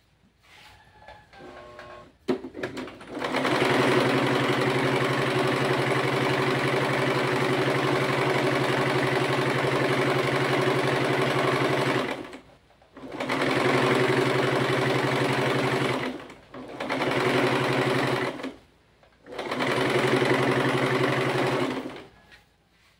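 Portable Singer sewing machine stitching fabric, running at a steady speed in bursts. It starts about three seconds in after a few faint handling sounds and a click. One long run of about nine seconds is followed by three shorter runs, with brief stops between them.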